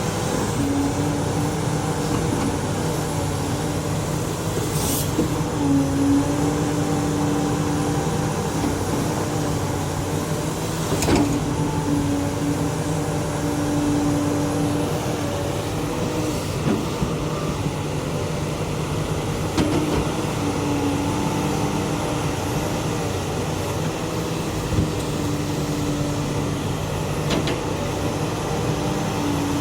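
XCMG XE370CA hydraulic excavator's diesel engine running steadily with a constant hum, a higher whine coming and going over it, and a few sharp knocks.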